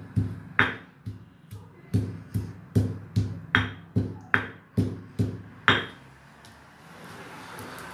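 Stone pestle pounding peanut chutney in a stone mortar: about a dozen sharp strikes, a little over two a second, stopping about six seconds in.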